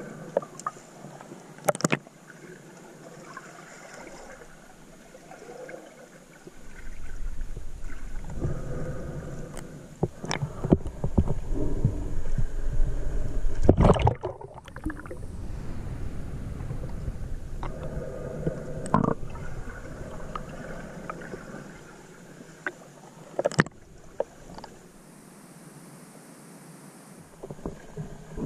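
Muffled underwater river sound heard through a GoPro's waterproof housing as a swimmer moves along the riverbed: low rumbling water movement that swells and fades, with scattered knocks and clicks against the case. There is a sudden break about halfway through as the camera crosses the water surface.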